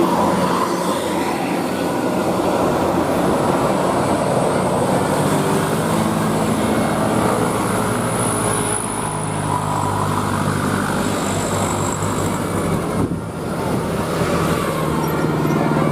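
Road traffic noise with a large bus engine running past: a steady, dense rumble with a low engine hum that grows stronger about halfway through.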